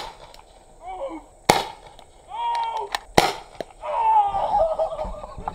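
CO2 paintball gun firing sharp single shots: one right at the start, one about a second and a half in, and one about three seconds in. Shouts and yelps come between the shots.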